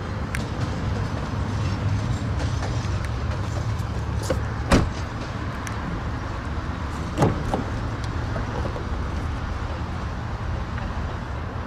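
Car doors of a 2007 Honda Accord being worked over a steady low outdoor rumble: one sharp knock a little before halfway, then a smaller knock about two and a half seconds later as the front passenger door is opened.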